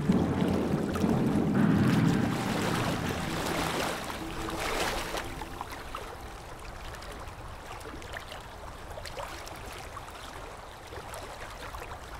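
Outdoor ambience of wind and choppy river water, a steady noisy wash that grows quieter. The tail of background music fades out in the first few seconds.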